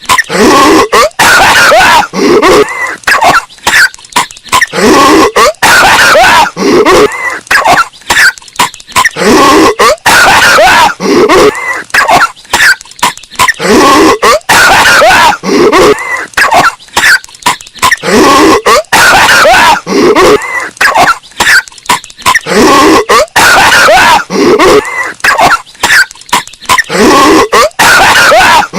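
A cartoon character's hacking coughs repeated in an unbroken, looped string, bass-boosted until they are very loud and distorted.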